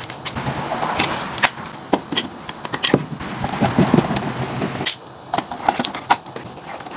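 Irregular sharp knocks and clicks over a rustling background, with a denser low rumbling clatter about four seconds in.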